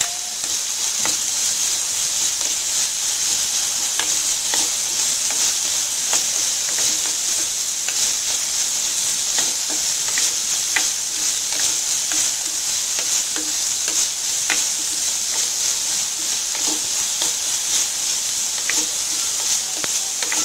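Chopped onion, capsicum and carrot sizzling in hot oil in a non-stick kadai, stirred with a plastic spatula that scrapes and taps the pan at irregular moments over a steady sizzle.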